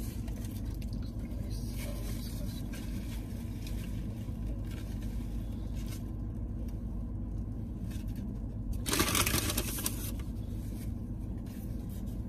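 Steady low hum inside a car, with quiet eating sounds and a loud rustle of a paper fast-food wrapper for about a second, some nine seconds in.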